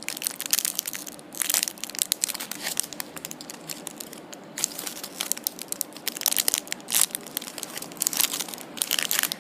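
Clear plastic wrappers on packaged squishy toys crinkling and crackling as they are handled and turned over, in quick irregular crackles.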